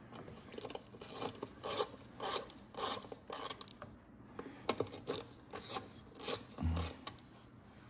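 Transmission pan bolts being run in by hand with a nut driver: short rasping strokes of the tool, about two a second, with a low thump near the end.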